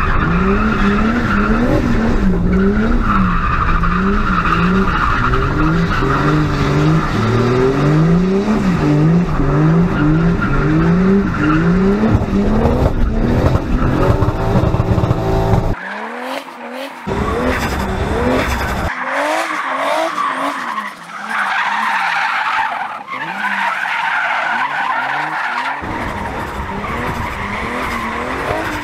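Turbocharged BMW E46 325 with an M50B25 2.5-litre straight-six, revving up and down over and over as the car drifts, with the tyres skidding and squealing. About halfway through the sound turns thinner, with the bass gone.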